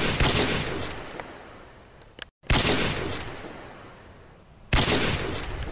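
A series of single rifle shots, one every two seconds or so. Each is a sudden bang that dies away in a long echoing tail.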